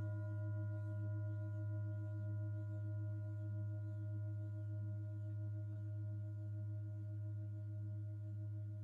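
Tibetan singing bowls ringing out after being struck, a strong low hum with several higher tones above it, wavering in a slow beat and slowly fading.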